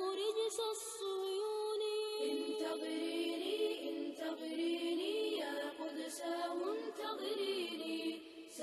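Unaccompanied vocal music in a chanting, nasheed-like style, with held and gliding melodic notes. A second, lower voice line joins about two seconds in.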